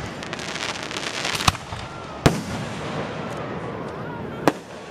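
Aerial fireworks shells bursting: three sharp bangs, about a second and a half in, just past two seconds and near the end, with a dense crackling of bursting stars through the first second and a half.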